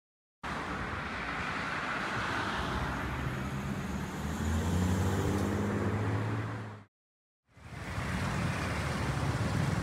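City street traffic noise, with a car's engine running close by as an older Mercedes-Benz sedan pulls across the road. The sound cuts out for a moment about seven seconds in, then the street noise returns.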